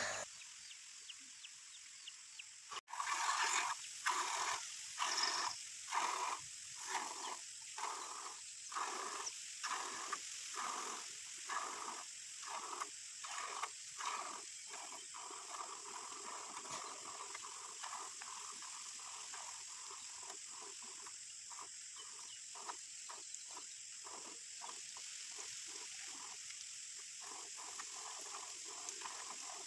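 Milk squirting into a bucket in short rhythmic spurts as a cow is hand-milked. The spurts are faint, begin about three seconds in after a click, and come more quickly in the second half.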